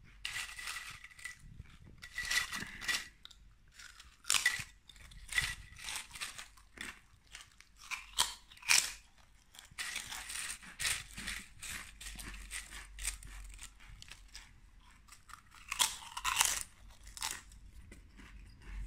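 Close-up crunching and chewing of paprika potato chips: irregular sharp crisp crunches with short pauses between bites.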